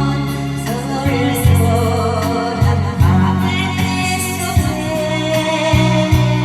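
A voice singing a Korean song over instrumental backing music, with bass notes and a steady beat.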